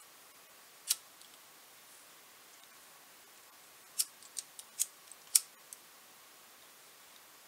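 Sharp little clicks from fingers working small wire connectors and leads: a single click about a second in, then a quick run of six or seven clicks just past the middle, over a low steady hiss.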